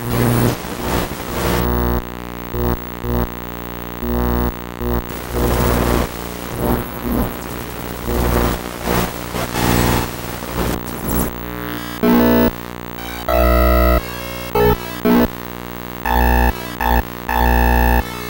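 Harsh electronic noise music: dense layered synthesizer tones and static that switch on and off abruptly, becoming choppier in stuttering blocks during the second half.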